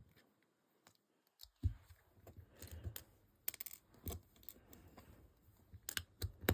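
Tiny plastic building-block pieces clicking and tapping as they are handled and pressed into place, scattered light clicks starting about a second and a half in.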